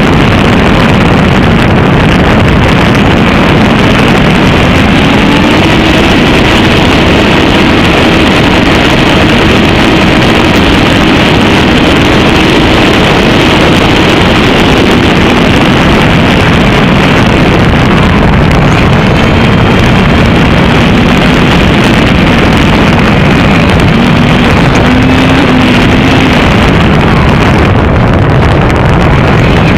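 FPV drone's motors and propellers in flight: a loud, steady rushing noise with a faint motor hum that slowly rises and falls in pitch.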